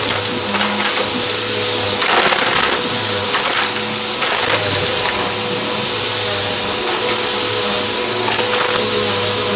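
Vacuum cleaner running steadily with its motor hum under a loud rush of air, and a few brief crackles as crunchy debris is sucked up.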